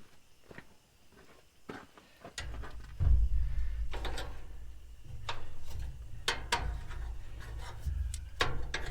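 A wrench working a 7/16 bolt on a gas grill: scattered metallic clicks and knocks, typical of a ratchet and tool on metal. A low rumble of handling joins them about two and a half seconds in.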